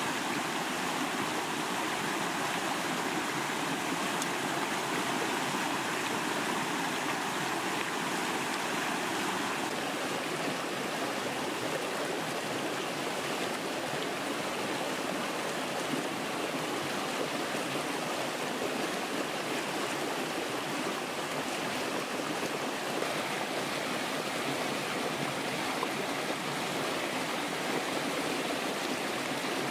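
Fast stream water rushing steadily over rocks.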